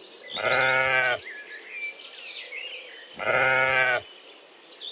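Two goat bleats, each a steady call just under a second long, about three seconds apart, made as the parrot's imitation of the goat's voice.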